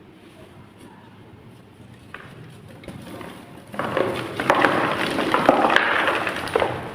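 Blocks of gym chalk crumbling and crunching, a dense crackle of many small cracks that starts a little past halfway and lasts about three seconds.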